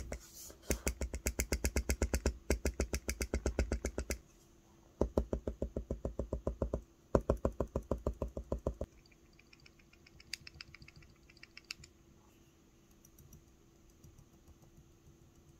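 Nohara Kogei wooden ballpoint pen tips striking and rubbing on paper in quick, even strokes, about eight a second, in three runs. Fainter, higher clicks follow about ten to twelve seconds in.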